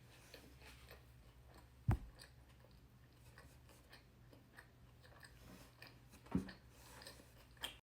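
A person quietly chewing a bite of a McDonald's ranch Snack Wrap, with faint crunchy clicks from the breaded chicken. Two sharp knocks stand out, about two seconds in and again past the six-second mark.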